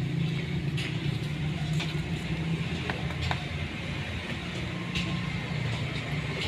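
A steady low mechanical hum, with a few sharp light clicks and taps over it.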